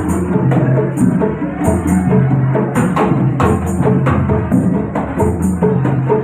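A rebana frame-drum ensemble playing a steady rhythmic pattern. Bright jingle shakes come about twice a second over deep drum tones.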